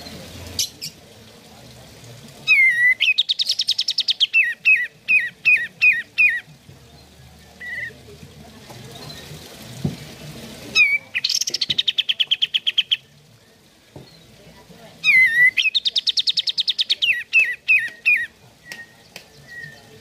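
Olive-winged bulbul (kapas tembak) singing three bursts of song. Each burst opens with a falling note, runs into a fast chattering trill and ends in a string of short, quick falling notes.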